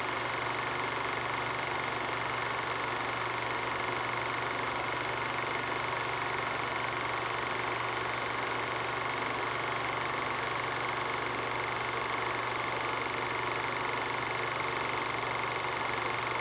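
16mm film projector running steadily: an even mechanical whir with several constant tones that holds unchanged throughout.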